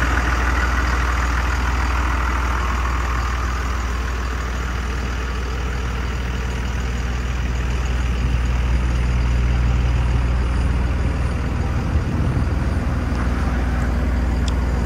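Heavy engine idling steadily, a low even hum with no change in speed, with a single short knock about twelve seconds in.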